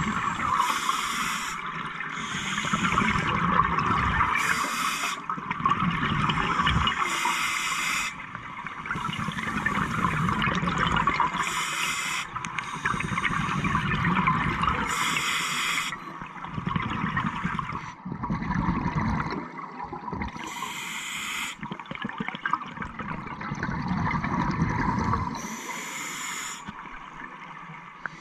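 Scuba diver breathing through a regulator underwater: a short hiss on each inhale, then a low bubbling rush as the exhaled air leaves, repeating roughly every three seconds.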